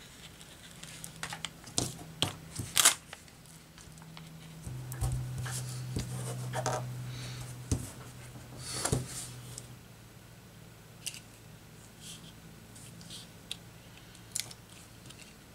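Packing tape unwound from a handheld tape dispenser and torn off, then stiff cereal-box cardboard rustling and scraping as it is handled and pressed flat, with scattered sharp taps and clicks.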